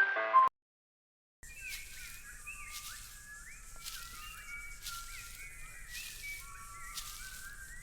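A tune cuts off about half a second in, and after a second of silence a chorus of many small birds starts chirping, with quick overlapping up-and-down chirps. A high hiss swells and fades about once a second beneath them.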